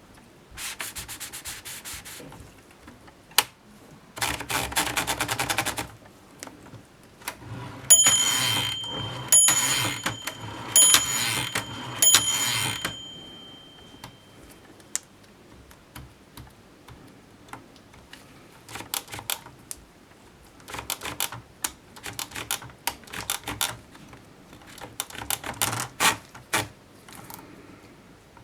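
1939 Erika M typewriter being worked: bursts of rapid mechanical clicking, then a run of loud strikes in the middle with a high metallic ringing that lingers after them, then scattered single key strikes and short clusters of clicks near the end.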